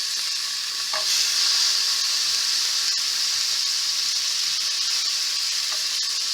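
Chopped onion sizzling as it fries in a little hot oil in a pan, with a steady hiss that grows louder about a second in.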